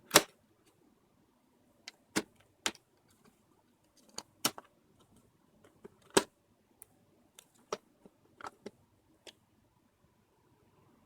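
Irregular sharp clicks and taps of small hard plastic and metal parts being handled on a laptop under repair, about a dozen strikes, the loudest right at the start.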